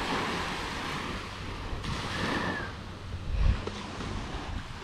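Surf washing onto a sandy beach, a steady hiss of waves, with wind rumbling on the microphone about three and a half seconds in.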